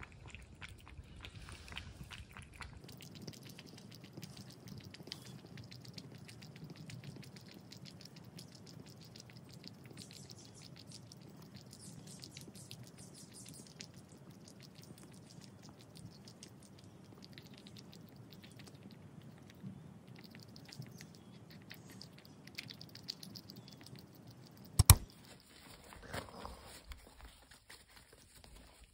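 Tabby cat lapping broth and chewing wet food from a bowl: a steady run of small, quiet wet clicks. Near the end, one sharp loud knock.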